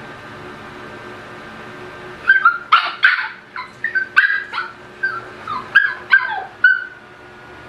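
Pomeranian puppy yipping and whining: about a dozen short, high-pitched cries, most dropping in pitch, starting about two seconds in and stopping shortly before the end.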